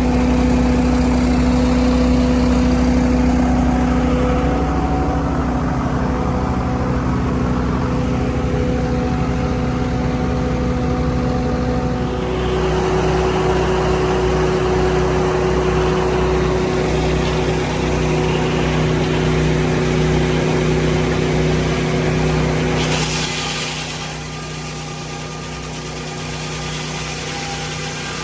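Sawmill engine running steadily, its pitch shifting about twelve seconds in. Late on, a short hiss is heard and the engine runs quieter afterwards.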